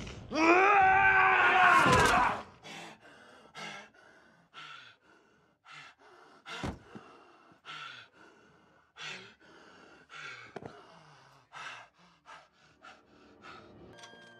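A man's loud, strained yell of effort, lasting about two seconds, its pitch rising and then falling. After it comes heavy panting, about one breath a second.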